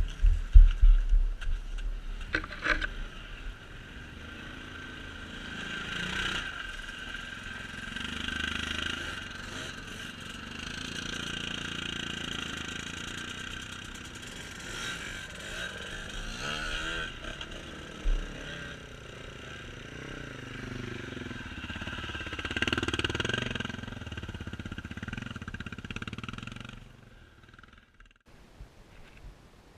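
A small engine running, its sound swelling and easing repeatedly, after a few sharp knocks in the first seconds; it stops about 27 seconds in.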